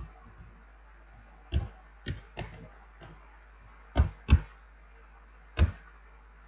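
Computer keyboard keystrokes clicking as code is typed: about seven separate key clicks, the loudest two close together about four seconds in and another a little later.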